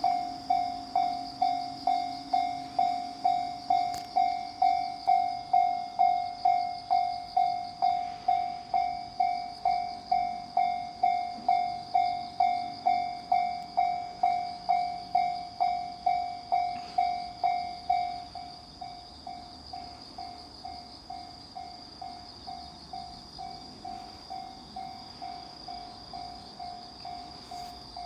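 Japanese railway level-crossing warning bell ringing, a steady repeating ding at about two strikes a second. About two-thirds of the way through it suddenly becomes much quieter and keeps ringing at the same pace.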